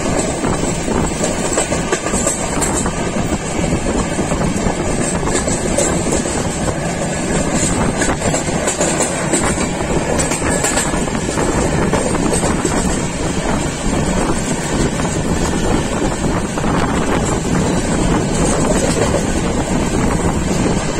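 Coromandel Express passenger train running at speed, heard from inside at the window: a steady rush of wheel and rail noise mixed with wind.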